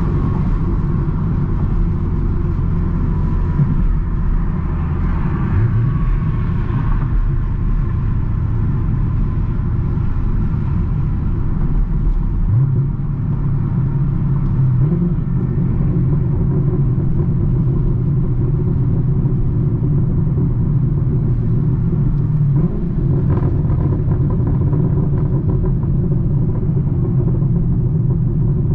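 Chevrolet Camaro V8 exhaust rumbling under way, its note stepping up and down through gear changes, with a brief sharp crackle on a downshift about three-quarters of the way through.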